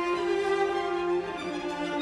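Background music: bowed strings, led by violin, playing sustained notes.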